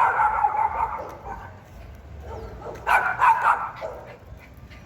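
Pinscher barking in two flurries of rapid barks, one at the start and another about three seconds in.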